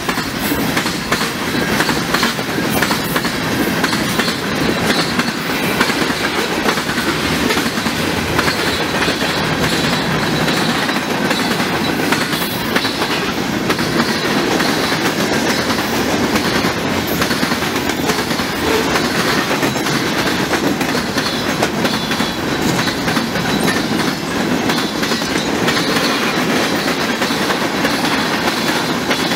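Freight train of boxcars and tank cars passing at speed: steady noise of steel wheels rolling on the rails, with a constant run of clicks as the wheels cross the rail joints.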